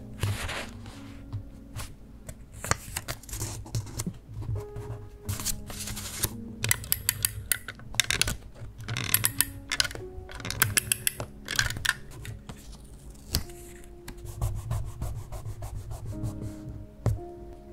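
Fingertips and tweezers rubbing and scratching on diary paper, pressing down stickers and washi tape in a series of short strokes, with a few light taps and clicks. Soft background music plays underneath.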